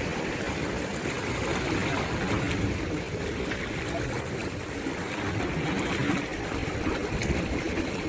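Calm sea waves washing, a steady rush of water.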